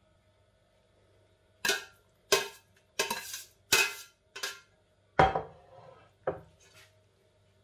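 Metal slotted serving spoon clinking and scraping against a glass baking dish while spreading penne: about seven sharp knocks and short scrapes, starting nearly two seconds in.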